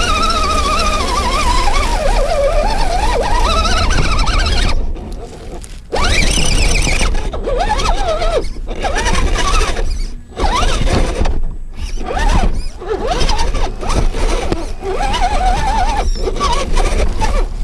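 1/10-scale RC rock crawler's electric motor and gearbox whining, the pitch sliding up and down with the throttle and cutting out briefly several times as the truck stops and starts.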